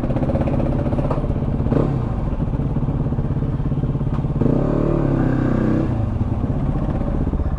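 Yamaha WR dirt bike's single-cylinder engine running steadily at idle. Another engine note joins it briefly about five seconds in.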